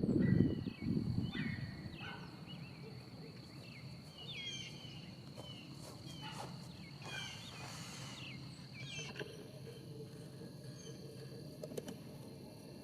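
Birds chirping in short, rapid calls outdoors, over a steady high-pitched whine that stops about nine seconds in. A low rushing noise dies away in the first second. The siren is not sounding.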